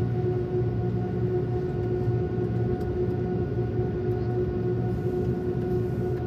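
Airliner cabin noise while taxiing: a steady low rumble from the jet engines with a constant droning hum tone above it.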